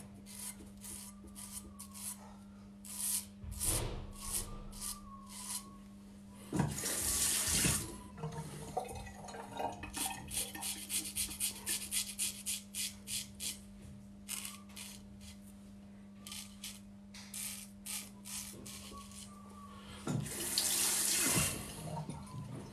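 Straight razor scraping through two-day stubble on the neck and face in quick runs of short strokes. A tap runs briefly twice, about 7 seconds in and again near the end, to rinse the blade, over a steady low hum.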